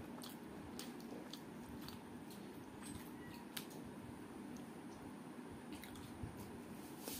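Close-up eating sounds: fingers squishing curry and rice and mouth chewing, heard as scattered small clicks and smacks over a steady low hum.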